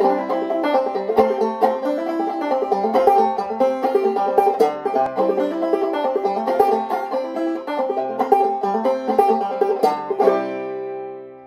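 Banjo played clawhammer style: a brisk old-time tune full of sharp percussive strikes on the strings. About ten seconds in, it ends on a last strum that is left to ring out and fade.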